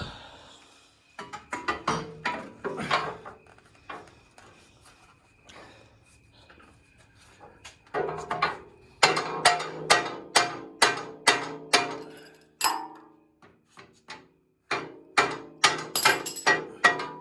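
Hammer blows on a steel part, each strike ringing briefly, in three quick runs of about two to three blows a second with pauses between, driving a part that is stuck at an angle into place.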